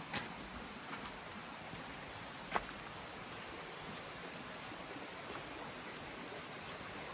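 Tropical rainforest ambience: a steady hiss with an insect's rapid, high-pitched pulsed chirping that stops a second or two in, faint high rising calls in the middle, and one sharp click about two and a half seconds in.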